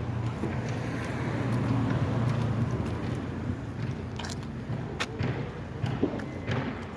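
A vehicle engine running with a steady low hum that swells about two seconds in and then eases off, with a few sharp clicks or knocks in the second half.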